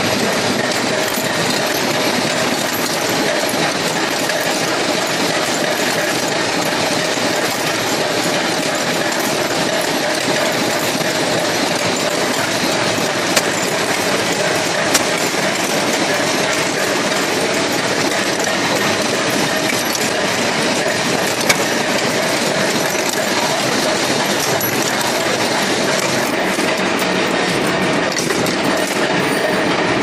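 Padlock-production machining machines running: a steady, dense metallic clatter with a steady hum under it, and a few sharper clicks around the middle.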